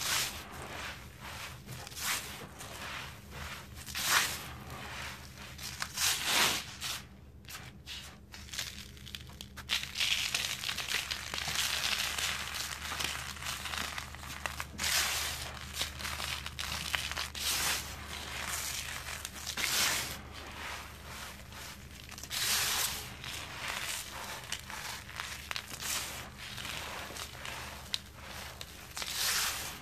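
Dry sand-and-cement chunks crunching and crumbling between the fingers, the loose powder rustling and scraping as it is rubbed and scooped: an irregular run of crunches, with a short lull about seven seconds in.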